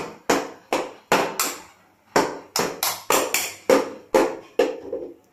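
Metal skewer repeatedly tapping and clinking against a metal kuzhi paniyaram pan while paniyaram are turned and lifted out of its wells: about three sharp clinks a second, each ringing briefly, with a short pause about two seconds in.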